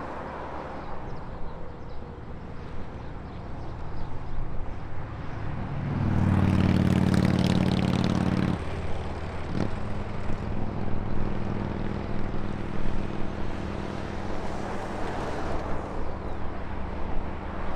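Road traffic passing, with a heavy diesel engine note: a loud low drone for a couple of seconds about six seconds in that breaks off suddenly, then a steadier, lower drone carrying on to the end.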